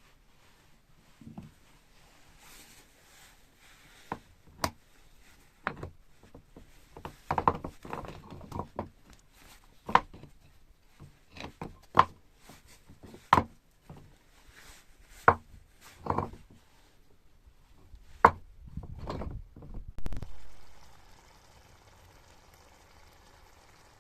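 Series of sharp, irregular chopping knocks, a blade striking wood, about a dozen strokes spaced a second or two apart. A short scraping rustle follows near the end.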